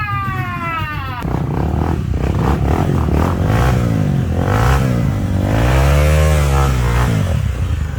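Off-road motorcycle engine revving up and down several times, its pitch rising and falling, loudest about six seconds in.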